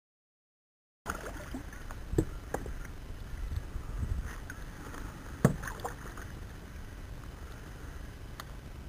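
Fishing kayak sitting on calm water: a steady low rumble with a few knocks, the loudest about five seconds in. It starts about a second in, after silence.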